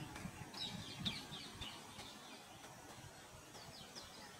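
Faint outdoor ambience with short high bird chirps: a quick cluster about half a second to a second and a half in, and a few more near the end.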